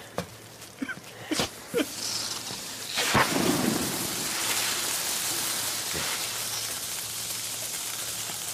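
A hand-held flare ignited about three seconds in, then burning with a steady loud hiss.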